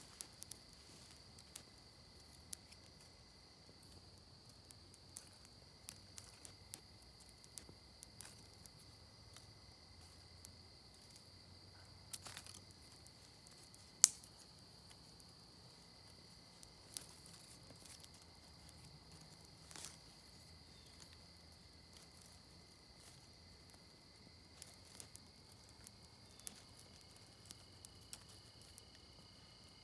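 Small twig fire crackling and dry sticks clicking and snapping as they are laid on, with sparse sharp clicks and one louder snap about halfway, over a steady high insect buzz.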